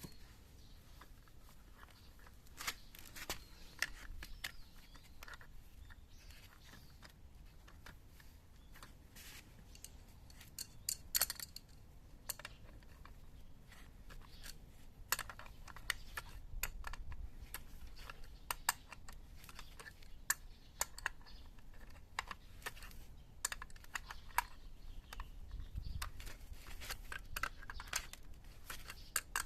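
Scattered light clicks and taps of hand tools and small metal parts being handled, irregular, with a louder cluster about a third of the way through.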